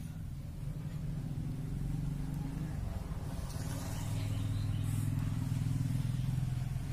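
A low engine hum, growing louder about four seconds in and easing off near the end.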